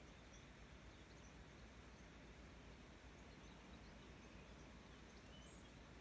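Near silence: faint outdoor ambience with a steady low hiss, and faint, distant high bird chirps scattered throughout.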